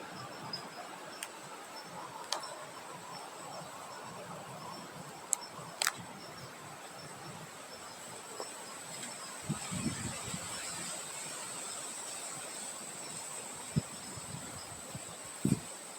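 Outdoor nature ambience: a soft wash of wind with a steady high-pitched insect buzz and a faint run of quick chirps, broken by two sharp clicks about five to six seconds in and a few low thuds near the middle and the end.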